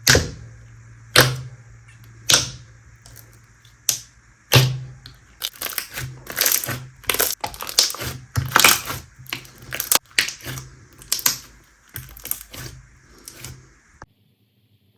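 Slime being pressed and squeezed by hand, giving sharp clicking pops about once a second at first, then a quicker run of crackling pops that stops suddenly near the end.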